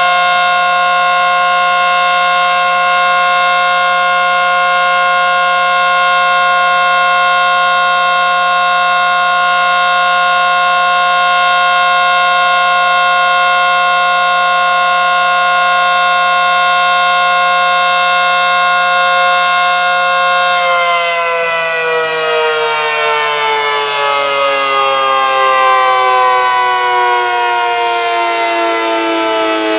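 ACA Screamer S-10 outdoor warning siren sounding a loud, steady tone with a lower hum beneath it. About twenty seconds in, the pitch begins to slide slowly downward. The siren is reverse-wired.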